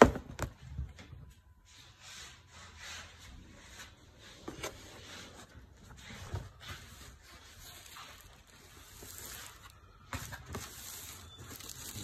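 Handling noise from sneakers being moved about on a cardboard shoe box: a sharp knock at the start, a few lighter knocks later, and soft rubbing and rustling between them.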